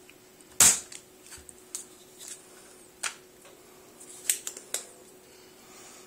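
A spring-loaded solder sucker (desoldering pump) firing: one sharp snap about half a second in as the plunger shoots back to pull molten solder off a relay pin's joint on a circuit board, followed by several lighter clicks, with a quick cluster near the end.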